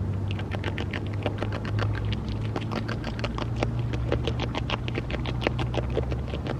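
North American beaver chewing leaves at close range: rapid crunching clicks, several a second. A steady low hum runs underneath.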